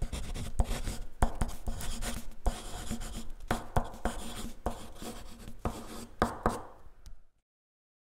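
Scuffling of grappling on foam mats: bodies and bare feet slapping, sliding and rubbing, with irregular sharp knocks. It stops abruptly a little under a second before the end.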